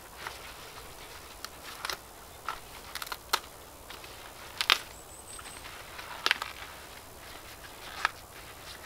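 Fresh leek tops being torn and snapped apart by hand and dropped onto a compost heap: irregular crisp snaps and crackles, the loudest about halfway through.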